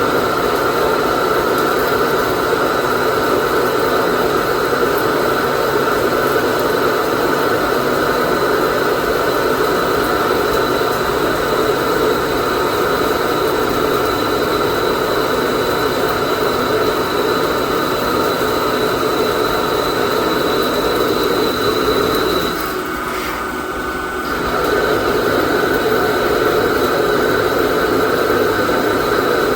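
Microcut Challenger BNC-1840 CNC lathe running through its program: a steady, loud machining noise with a thin high whine that stops about 22 seconds in. Around 23 seconds the noise drops briefly, then picks up again at full level.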